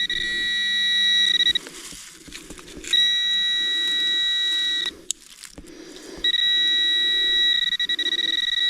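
Metal detector pinpointer sounding a steady high alarm tone three times, each lasting a second and a half to three seconds, as it is held over a buried metal target. Soft rhythmic scuffing of dirt being worked runs underneath.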